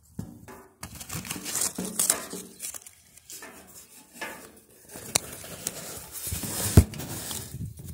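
Handling noise: fabric rubbing and scraping against a phone's microphone, with a few sharp knocks in the second half.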